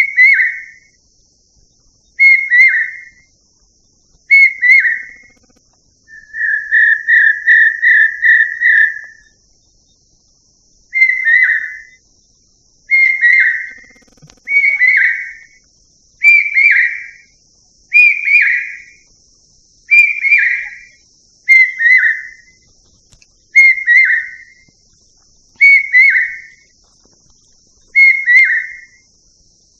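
A bird repeating a loud whistled call, one falling note about every two seconds, with a quick run of about seven short notes about six seconds in.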